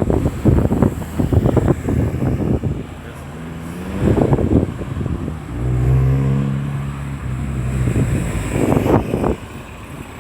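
Road traffic passing, with wind buffeting the microphone. In the middle a vehicle's engine drones low and steady for about two seconds as it goes by.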